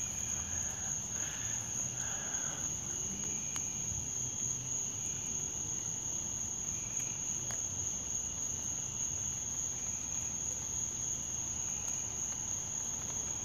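Night insects, crickets or katydids, singing in a steady, unbroken high-pitched chorus, with fainter insect trills lower down.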